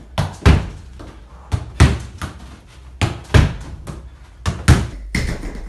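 A football is struck and rebounds in a small wooden-walled room, over and over, in a fast passing drill. There are four pairs of thuds, each a lighter knock and then a loud thud with a short ring, about one pair every 1.4 s. Near the end the thuds stop and a steady hiss takes over.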